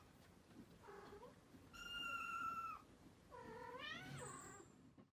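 Kittens meowing faintly, three high-pitched calls: a short one about a second in, a long steady meow around two seconds, and one that rises in pitch near four seconds.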